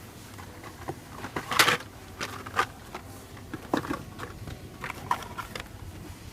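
Handling of blister-carded die-cast toy cars taken out of a cardboard case: scattered light clicks and rustles of plastic and card, the loudest click about a second and a half in.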